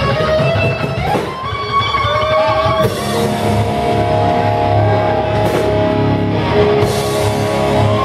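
Live rock band playing amplified electric guitars over bass and drums, with a guitar holding long, bending lead notes. Cymbals crash about four times.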